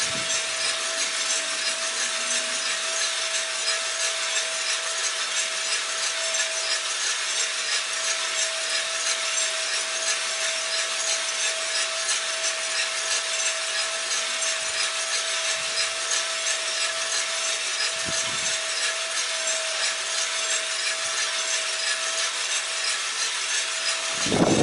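Cormorant CR600 gas coffee roaster running, with the beans tumbling in the turning drum under the fan and burner, near the end of the drying phase. It makes a steady, even hiss with a faint constant tone beneath it.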